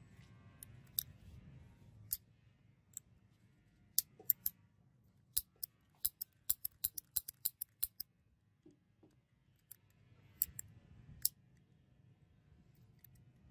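Sharp metallic clicks of a restored top-break revolver's action being worked by hand, with the hammer and cylinder mechanism clicking. The clicks are scattered at first, then come in a quick run of about a dozen in the middle, with a few more near the end.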